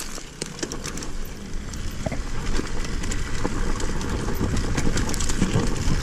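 Dirt bike engine running at low revs as the bike rolls down a rocky trail, with scattered knocks from the bike over stones, heard through a helmet-mounted camera.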